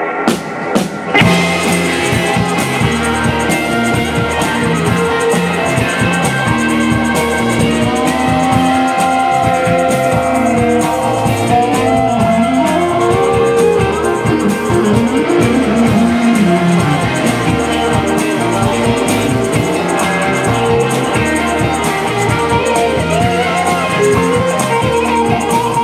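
Live psychedelic rock band playing, led by electric guitars over bass and drum kit. A few sharp drum hits in the first second lead into the full band, with bending, sliding guitar lines in the middle.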